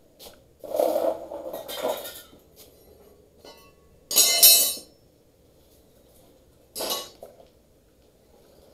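Clattering and clinking knocks in three bursts: one about a second in, a loud sharp clatter about four seconds in, and a shorter one near seven seconds, with quiet between.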